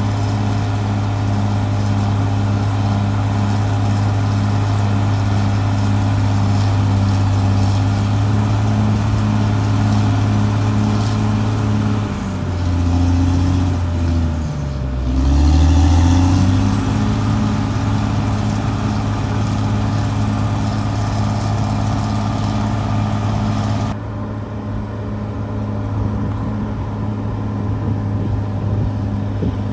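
Caterpillar D6R XL bulldozer's diesel engine running steadily. About halfway through, its pitch sags and then climbs back to where it was. Near the end the sound turns duller.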